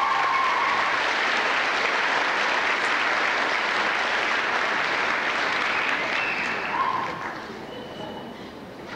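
Audience applauding, with one person clapping close by; the applause dies away about seven seconds in.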